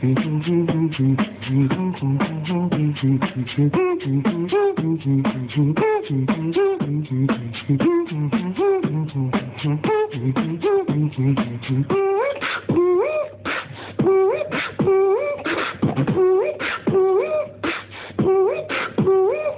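Beatboxing: fast, steady mouth percussion with a low bass line underneath. From about twelve seconds in, a higher sung melody with notes that slide up and down runs over the beat, several voices at once from one mouth.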